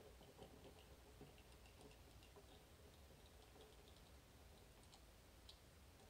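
Faint, scattered clicks and rattles from the spring-loaded magnetic tumblers and pick inside a Miwa EC magnetic lock as it is picked.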